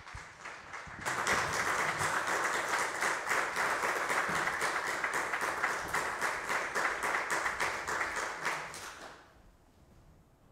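Congregation applauding: many hands clapping together, starting about a second in and dying away near the end.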